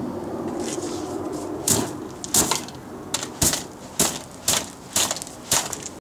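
A TV set burning inside a microwave oven, giving sharp cracks and pops about every half second, with a steady low hum that fades out before the cracking starts.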